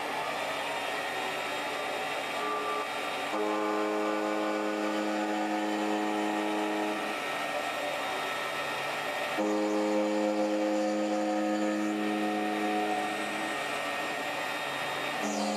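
Benchtop mini metal lathe running, turning down a brass rod. Under the steady motor and spindle hum, a louder pitched hum comes in twice, each time for about four seconds, as the tool takes a cut.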